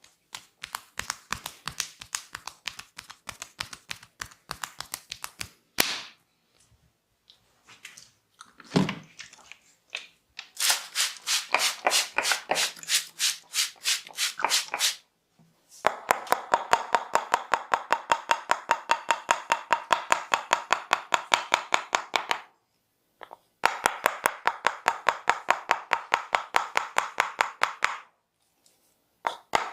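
Massage percussion by a barber's hands: quick sharp slaps and chops striking the body, loose and uneven at first, then settling into fast even strikes about eight a second in two long runs with a short break between.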